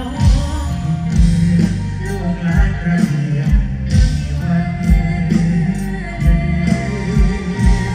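Live mor lam concert band playing loudly through a big PA system, with a singer's voice over it and heavy kick-drum thumps.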